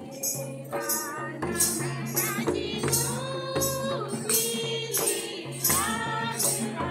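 Music: a sung song over steady bass notes, with a high percussion stroke keeping a beat about twice a second.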